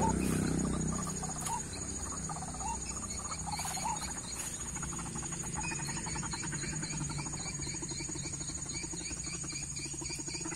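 White-breasted waterhen calling, a fast pulsing croak, over a steady high insect whine, with a sharp knock right at the start.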